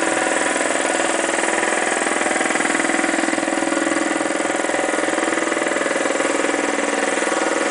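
A motor running steadily with an even, buzzing hum that does not change in pitch or level.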